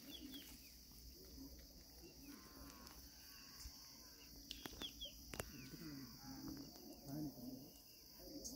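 Faint rural ambience: distant animal calls with a few short bird chirps, and a couple of light clicks about halfway through.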